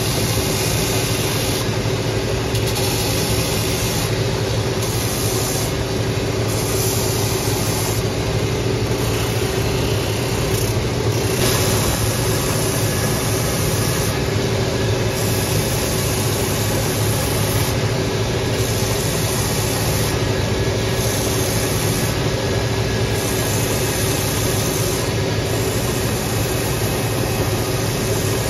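Shoe finishing machine running steadily, its motor and spinning abrasive wheels humming, while a boot's sole edge is sanded against the wheels. A high hiss comes and goes every second or so as the sole meets the wheel.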